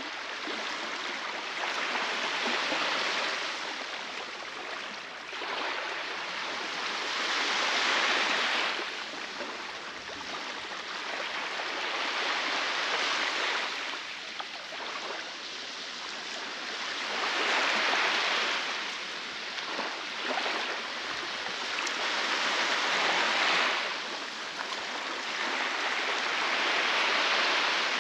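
Baltic Sea waves breaking and washing on the beach: a steady hiss of surf that swells and eases about every five seconds as each wave comes in.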